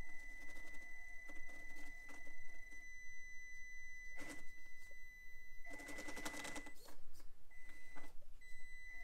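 Traxxas TRX-4M micro crawler's small brushed 180 motor and drivetrain running at crawling throttle, with a steady high whine. There is a brief clatter of tires on the rock about four seconds in and a longer scrabbling rattle around six seconds.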